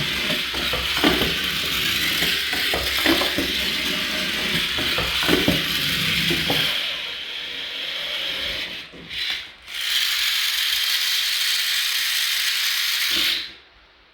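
Toy vehicle's small motor and plastic gears running with a clicking, ratcheting whir. It dips briefly twice past the middle and cuts off suddenly near the end.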